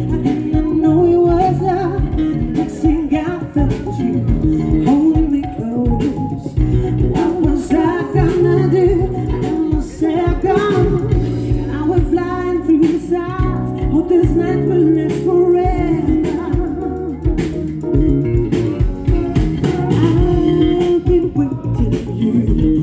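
A live pop band playing: a lead vocal sung into a microphone over drums and backing instruments, amplified through the stage PA.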